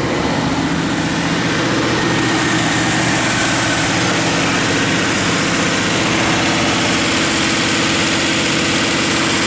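A 1987 Pontiac Grand Prix's 305 V8 (LG4) idling steadily, running with good oil pressure on a newly replaced oil pressure sending unit.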